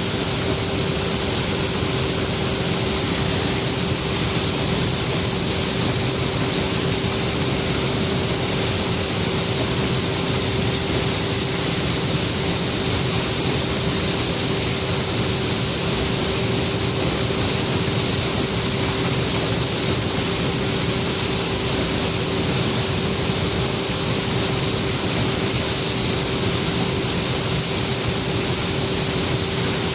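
John Deere 9550 combine running steadily while harvesting corn: a constant mechanical noise with a steady whine held throughout.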